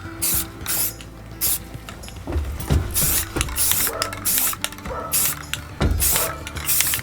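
Aerosol spray-paint can hissing in repeated short bursts with brief pauses between them, laying a base coat over a rifle.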